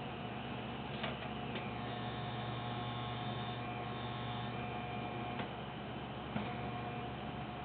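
Dainichi kerosene fan heater running with a steady hum, broken by a few sharp ticks and a faint high whine in the middle: the abnormal noise the heater is making.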